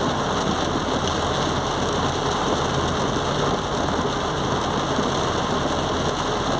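Heavy rain falling on a car's roof and windshield, heard from inside the moving car as a steady, dense hiss, with the engine running low underneath.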